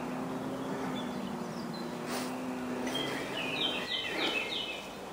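A small songbird sings a short phrase of quick, repeated, downward-sliding high notes about three and a half seconds in, over the steady background hiss of open woodland.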